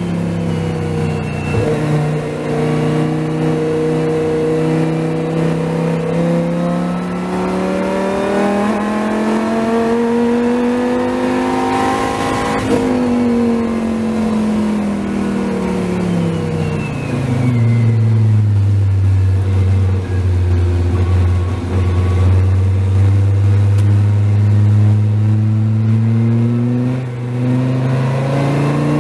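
Dodge Viper race car's engine heard from inside the cockpit at full throttle, its pitch climbing steadily for about ten seconds down a straight. It then drops away over several seconds as the car slows for a corner, runs low for a while, and begins pulling again near the end.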